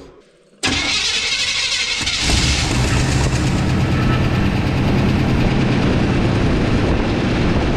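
Squarebody pickup truck's engine being cranked, catching about two seconds in and then running steadily at idle, started on freshly added fuel.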